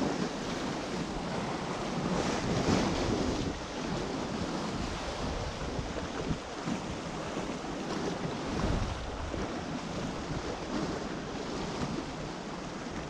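Sea waves washing against a rocky shore, with wind buffeting the microphone; the surf swells louder about two to three seconds in and again near nine seconds.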